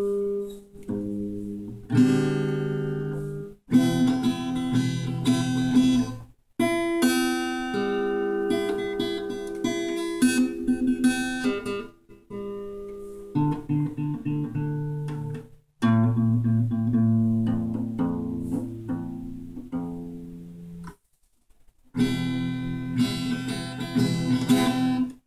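Guitar playing a series of chords, each held a second or two, with several brief stops and a longer pause near the end. The guitar is badly out of tune.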